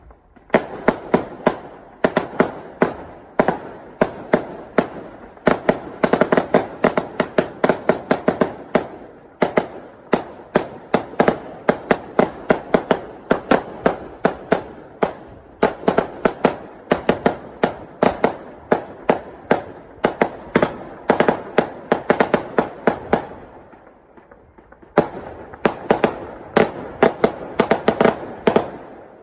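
Fireworks going off in a rapid, continuous barrage of sharp bangs, several a second, easing to a brief lull near the end before starting up again.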